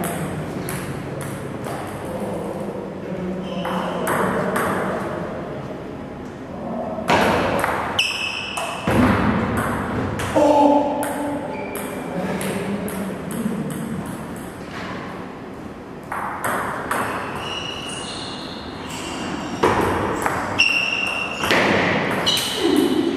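Table tennis ball striking the table and rackets: repeated sharp ringing clicks, in runs of rally play.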